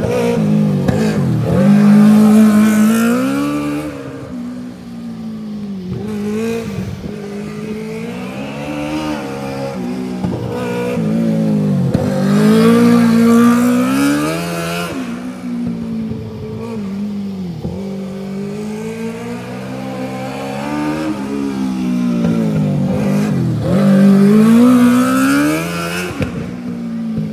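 A 2012 Stallard 600cc mini sprint car's motorcycle engine runs hard on a dirt oval, its revs climbing and falling three times as it laps the track.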